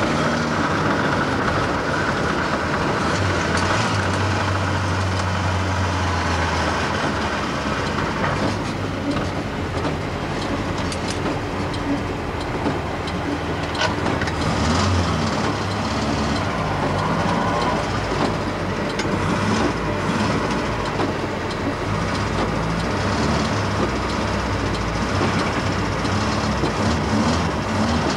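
Mk1 Ford Escort driving, heard from inside the cabin: engine drone and road and tyre noise with body rattles. The engine note changes a few times along the way.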